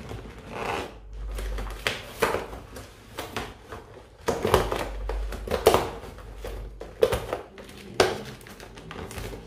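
Hands handling balloons and a strip of cut latex balloon: rubbing and rustling with scattered sharp clicks and knocks.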